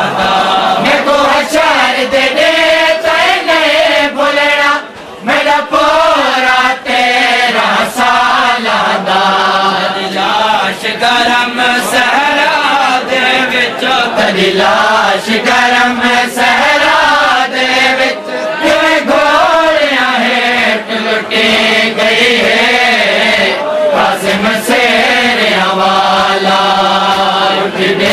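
Noha, a Shia Muharram mourning lament, chanted by a group of men, with sharp slaps of matam (hands beating on chests) running through it.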